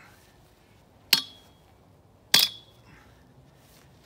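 Sledgehammer striking the top of a steel fence post twice, about a second and a quarter apart: two sharp metallic clanks, each with a brief ring, as the post is hammered in by hand instead of with a post driver.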